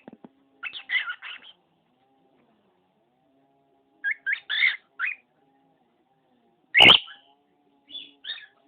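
Pet cockatiel giving short, high calls in three quick clusters. A single loud, sharp sound cuts in a little before seven seconds, louder than anything else.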